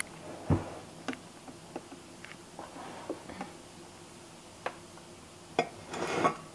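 Scattered light clicks and knocks of things being handled and set down on a kitchen counter, with a duller thump about half a second in and a short rustling swell near the end.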